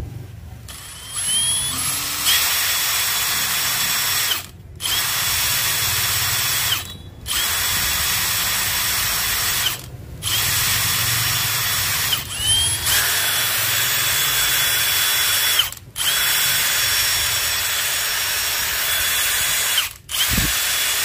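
Milwaukee M18 Fuel 2861-20 cordless impact wrench running free with no load in its highest speed mode (mode 3), a steady high whine. The trigger is pulled in about six runs of two to four seconds each, with short pauses between them.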